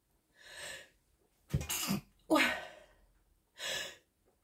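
A woman sneezing: a soft breath in, then two sharp sneezes close together, and a softer breath near the end.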